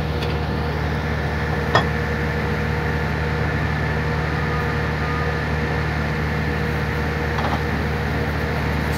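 Pit-launched horizontal directional drilling machine and its hydraulic drive running steadily, a constant low mechanical drone with a steady hum. A single sharp knock about two seconds in.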